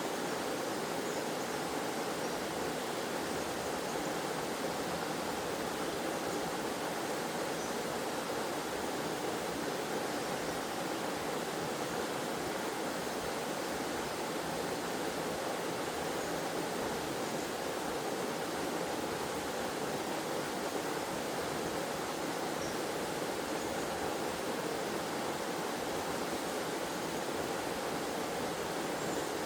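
Waterfall in a forest stream: water pouring and splashing in a steady, even rush with no breaks.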